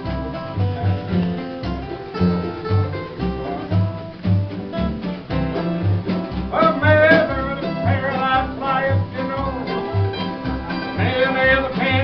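Acoustic guitar played in a country-bluegrass boom-chick rhythm, with regularly spaced bass notes under strummed chords. About six and a half seconds in, a wavering lead melody comes in on top, and it comes back near the end.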